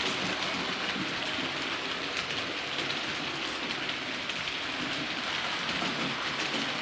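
Hornby OO-gauge model train running on its track: a steady rolling hiss of wheels on rail, with many small, fast clicks.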